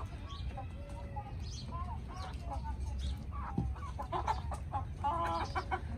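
Chickens in a pen clucking, many short calls one after another, with a quicker run of clucks near the end. A steady low rumble sits underneath.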